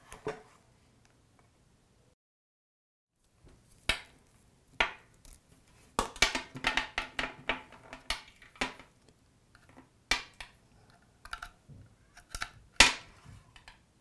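Handling noise from a USB hub, cables and a USB adapter being picked up, moved and set down on a hard desk: a string of sharp clicks and knocks, thickest about halfway through, with one sharper click near the end.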